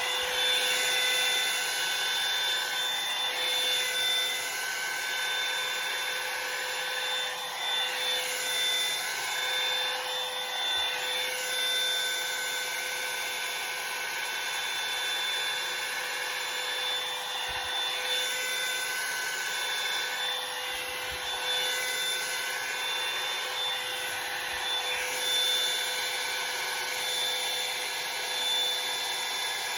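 Revlon hair dryer brush running steadily on its high setting: a blowing rush of air with a steady motor whine.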